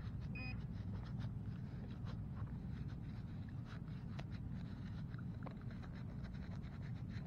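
Faint scraping and scattered ticks of loose soil and grass being worked in a freshly dug hole, over a low steady rumble. Two short electronic beeps come right at the start.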